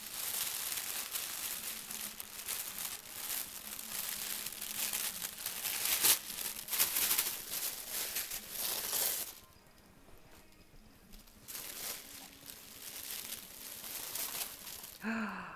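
Tissue paper crinkling and rustling as it is pulled and handled, dense and continuous for about nine seconds, then dropping to a few quieter, scattered rustles.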